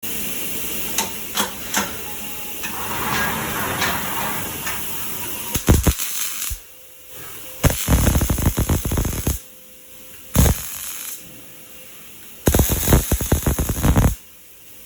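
Robotic MIG welding arc from an OTC Digital Pulse 350 weldset, crackling and hissing as the torch lays short welds. After a stretch of steadier noise with a few clicks, it comes in three separate runs of about one to two seconds each, with a quieter hum between them.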